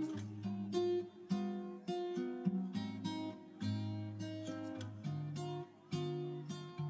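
Background music: acoustic guitar picking a gentle melody, one plucked note after another, each ringing and fading.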